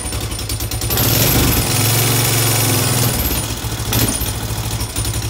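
2005 Honda Foreman 500 ES's single-cylinder engine idling, a rapid, even run of firing pulses.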